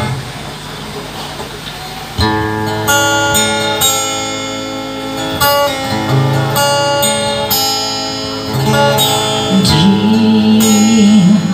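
Acoustic guitar playing a song intro, picked and strummed chords with bass notes that change every second or two. Near the end a woman's singing voice comes in over the guitar.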